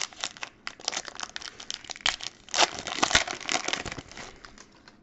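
Foil wrapper of a 2019-20 Panini Mosaic basketball card pack being torn open and crinkled by hand: a dense run of crackles, loudest about halfway through and thinning out near the end.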